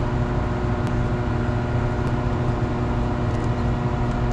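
Steady industrial machinery hum with a low rumble and several steady tones, broken by a few faint clicks.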